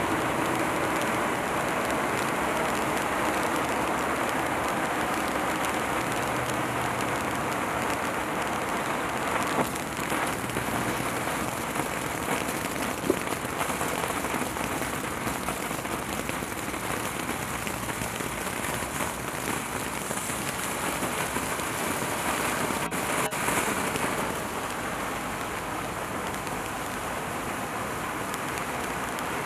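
Black Cat Illuminati fountain firework spraying sparks with a steady hiss, broken by a few sharp crackles and pops.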